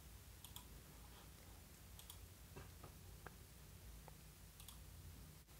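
Near silence with about ten faint, scattered computer mouse clicks.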